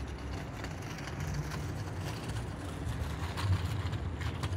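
Low, steady rumble of outdoor city background noise, like distant traffic, with a few faint clicks.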